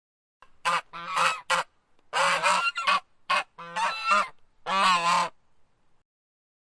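Goose honking: a series of loud honks, some single and some in quick runs of two or three, with short pauses between.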